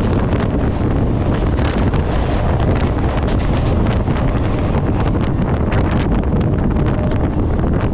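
Wind rushing over a camera mounted on the outside of a fast-running EMU local train, over the steady running noise of the train on the track with scattered rattling clicks. The coaches of an express on the adjacent track pass close alongside.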